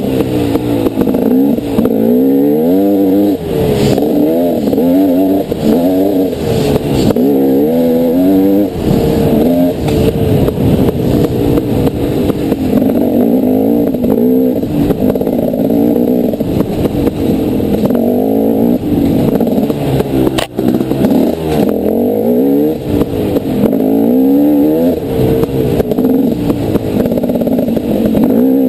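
Dirt bike engine under way, its pitch rising and falling constantly as the throttle is opened and closed, with a brief break about two-thirds of the way through.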